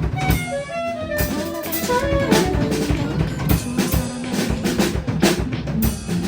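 Background music with a drum kit beat and a guitar-like melody.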